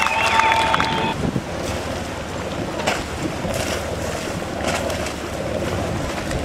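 Seaside wind buffeting the microphone over waves, with a few soft knocks. A held high tone carries over from before and stops about a second in.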